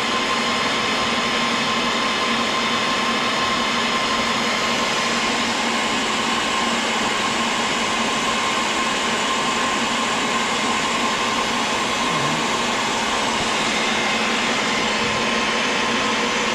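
Magnetic drill motor of a homemade line-boring rig running steadily with a constant whine as its boring bar cuts an excavator pin hole.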